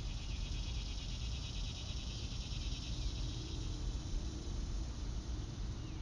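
Annual summer cicadas buzzing: a high, pulsing drone that fades after about three seconds, over a steady low rumble.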